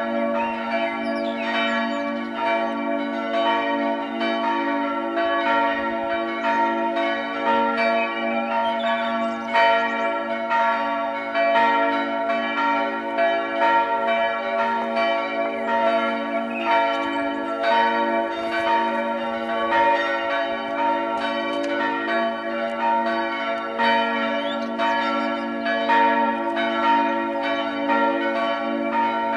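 Several church bells in a tower ringing together, their strikes overlapping in a continuous, even peal.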